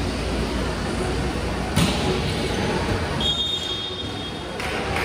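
One sharp volleyball hit about two seconds in, then a referee's whistle blown once for about a second and a half, over the steady noise of a large sports hall.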